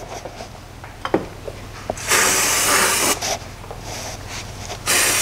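Aerosol can of brake cleaner sprayed in two hissing bursts of about a second each, onto the top edges of the cylinder bores, with a few light knocks before the first.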